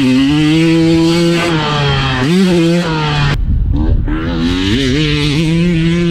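Two-stroke dirt bike engine revving hard as the bike is ridden. It climbs and holds, briefly dips and picks up again about two seconds in, and drops off the throttle a little past halfway before pulling up again.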